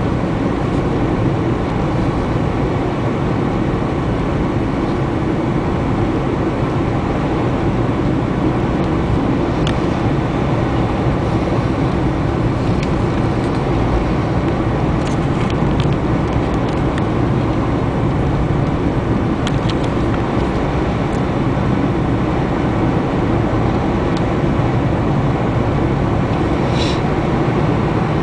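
Steady road and engine noise inside a moving car's cabin: tyres running on asphalt over a low engine hum, with a few faint ticks.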